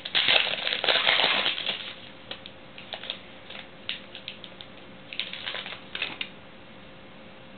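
Foil wrapper of a football trading-card pack being torn open and crinkled, dense for the first two seconds, then scattered crinkles and taps as the cards are slid out, dying away about six seconds in.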